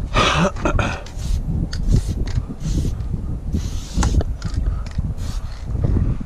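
Aerosol spray paint can hissing in several short bursts as outline strokes are sprayed, over steady wind rumble on the microphone.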